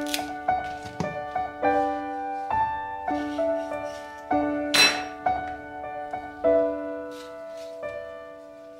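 Slow background piano music, with notes and chords struck about once a second and left to ring. There is one short, sharp noise about five seconds in.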